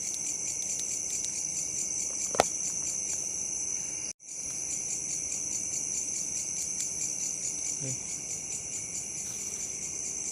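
Night chorus of crickets and other insects, a steady high-pitched chirring that goes on throughout. A single sharp click stands out about two seconds in, and the sound cuts out for an instant about four seconds in.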